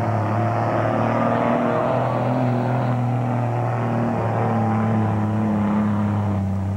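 Dual-rear-wheel pickup truck engine running hard at steady high revs under load while it pulls a sled down a dirt pulling track.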